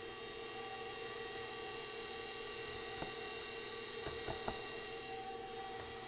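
Electric stand mixer running at its lowest speed, beating a thick batter: a steady motor whine, with a few light ticks about three and four seconds in.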